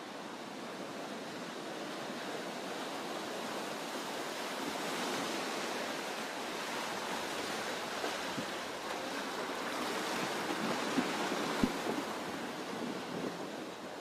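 Muddy water splashing and rushing around a Range Rover Sport as it wades through a flooded track. The wash of noise swells and falls, with a few sharp knocks near the end.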